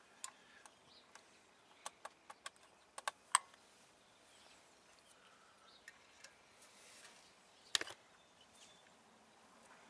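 Faint, scattered clicks and small metallic taps from hands handling a small engine's carburettor: a quick run of them in the first few seconds and one sharper click about eight seconds in.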